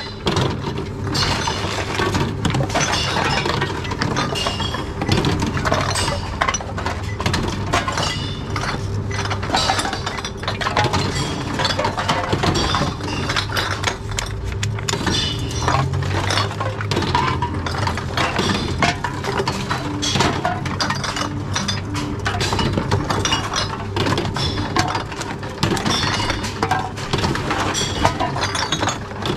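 Glass bottles clinking and knocking against each other, many times over, as they are taken from a tub and fed one after another into a reverse vending machine. A steady low machine hum runs underneath.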